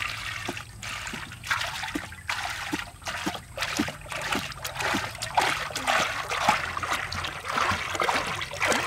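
Cooking oil pouring in a thick stream from a large plastic jug into a hot iron wok, splashing and crackling as it hits the heated metal.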